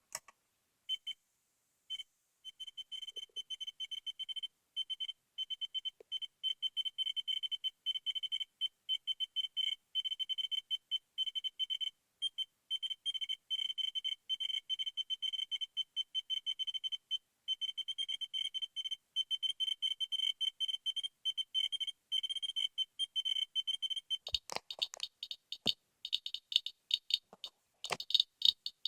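Geiger counter sounding off each detected count as a high-pitched beep, in a fast, irregular stream that begins sparsely about a second in and then runs dense. Near the end it gives way to a different counter's sharper, drier clicks.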